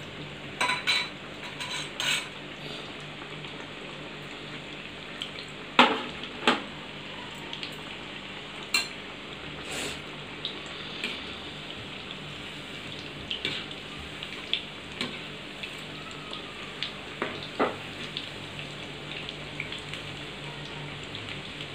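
Breaded chicken nuggets deep-frying in hot oil in a kadai: a steady sizzle of bubbling oil, with a metal slotted spoon knocking and scraping against the pan every few seconds, loudest about six seconds in.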